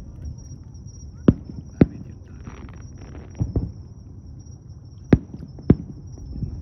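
Fireworks shells bursting: four sharp bangs in two pairs, the first pair a little over a second in and the second about five seconds in, over a low steady rumble.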